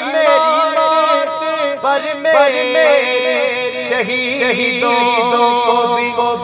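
A man singing a naat, an Urdu devotional poem in praise of the Prophet Muhammad, drawing out long held notes with small ornamental turns.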